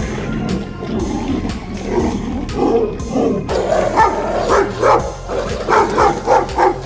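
An animal's repeated short, yelping calls, several a second, starting about halfway through.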